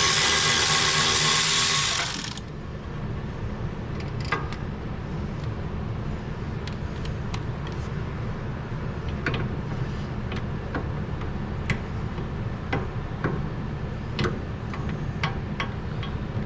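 A power tool runs for about two seconds while loosening a 14 mm brake caliper bolt, then stops. After that there is a steady low hum with scattered light metallic clicks and clinks of parts and tools being handled.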